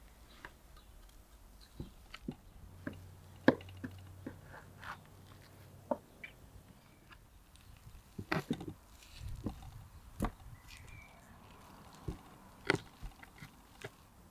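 Cleaver slicing through a cooked lamb fat tail roll, its blade striking the wooden cutting board with several sharp knocks a few seconds apart, with soft cutting sounds between them.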